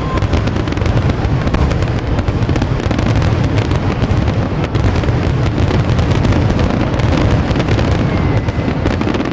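Fireworks display going off: many bangs and crackles in quick succession over a continuous low rumble.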